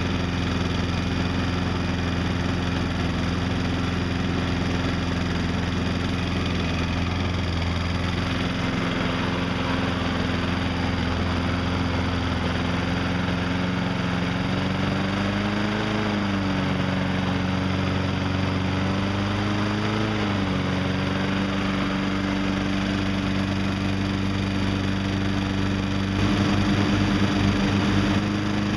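Honda lawn mower engine running steadily while its governed speed is set with a handheld tachometer toward about 3200 rpm. Its pitch rises briefly twice as the governor linkage is bent with pliers, then settles a little higher, and it grows louder near the end.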